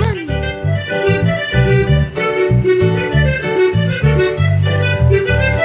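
Electronic Korg keyboards playing an upbeat tune, with a reedy melody line over a bass line pulsing in short notes. A quick downward pitch slide sounds right at the start.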